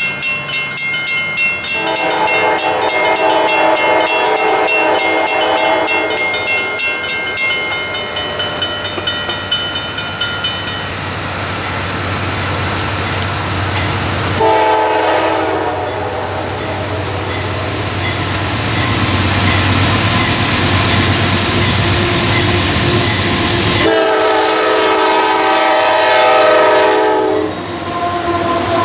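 Air horn of an approaching CSX freight train's lead diesel locomotive sounding long blasts for a grade crossing, three long ones and a fourth starting near the end. A crossing bell rings steadily through the first ten seconds or so. In the last seconds the locomotives pass close by with engine and wheel noise.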